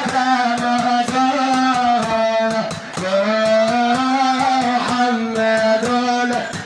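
Amplified male voice chanting a Sufi madih (praise song), holding long wavering notes in two phrases with a short break about three seconds in, over a steady beat of sharp strikes.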